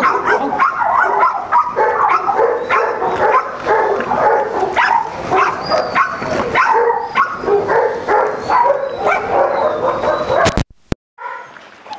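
A large pack of dogs crowding around their food, many barking and yelping over one another in short overlapping calls. The sound cuts off abruptly near the end.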